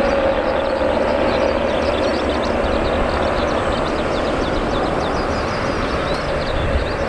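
Boeing 737-800's twin CFM56-7B turbofan engines at low taxi power as the airliner rolls along the taxiway: a steady rushing hum with a held tone in the middle range. Short high chirps sound faintly over it throughout.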